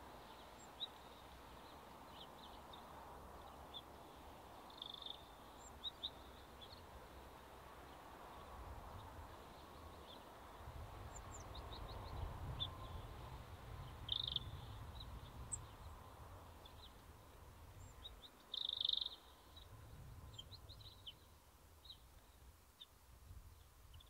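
Small songbirds giving short, high chirps at irregular intervals, a few louder ones in the middle and again about three quarters through, over a low rumble in the middle part.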